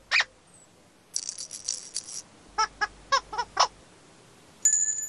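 Playful children's-TV sound effects: a quick swish, a shaker-like rattle, then a run of five or six short squeaky pitched notes, ending in a high ringing tone.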